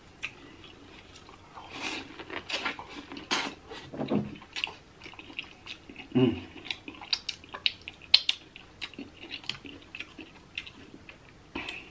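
Close-miked eating sounds of a man working on a sauce-coated corn on the cob: bites, chewing and a stream of quick wet lip smacks and finger-licking.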